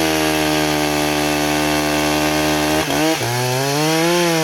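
Gas chainsaw running at high revs, steady at first. About three seconds in, the pitch drops and wavers as the saw takes load, cutting into a felled log to buck it up.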